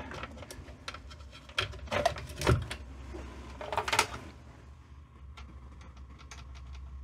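Clicks and knocks of a mains plug being pushed into a power strip, then lighter clicks of the Samsung VT-1270C VCR's front-panel buttons being pressed. Under them runs a faint steady low hum, taken for the VCR's power transformer humming while the machine fails to power on.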